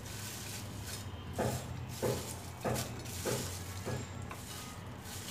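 Crisp-fried, batter-coated okra (kurkure bhindi) strips crackling and rustling as they are tossed by hand in a glass bowl, in a steady run of scoops about one every two-thirds of a second. The crunchy rattle is the sign that the okra has fried crisp.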